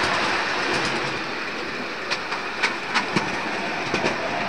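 A 7.25-inch gauge miniature railway train rolling along its track: a steady rumble and hiss, with sharp, irregular clicks of wheels over rail joints from about two seconds in.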